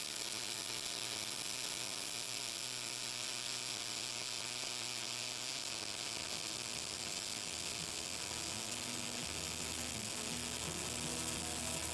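MIG welding arc sizzling steadily as wire is fed into the weld. Low music notes come in near the end.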